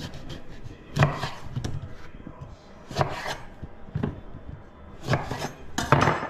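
Knife cutting a lemon on a chopping board: several sharp chops, one to two seconds apart.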